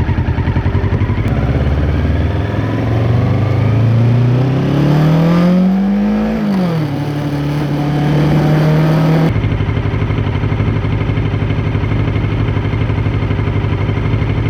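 Kawasaki Ninja 650 parallel-twin engine, through an Arrow X-Kone exhaust with dB killer, pulling away from idle. The revs climb for about five seconds, dip with a gear change, hold steady for a few seconds, then drop back to idle as the throttle is shut.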